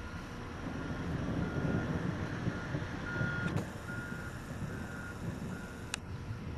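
A vehicle's reversing alarm beeping in an even rhythm, a little more than one high beep a second, over a low rumble that swells in the middle. Two sharp clicks, the second about six seconds in.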